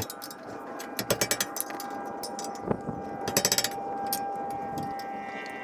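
Impact wrench hammering in two short bursts of rapid clicks, loosening the bolts that hold a truck's wheel bearing-and-hub assembly to the steering knuckle.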